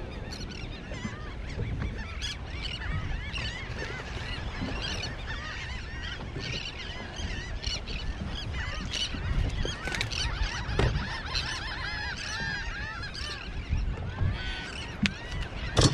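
A flock of birds calling, many short overlapping calls running on without a break.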